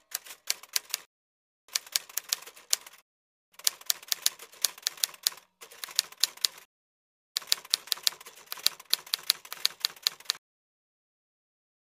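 Typewriter keys clacking in five quick runs of keystrokes with short pauses between them.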